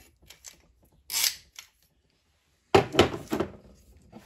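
Light metal clicks and a brief scrape as a piston ring compressor is worked off a piston, then a louder clatter of metal knocks as the compressor tool is set down on the workbench, and a single click near the end.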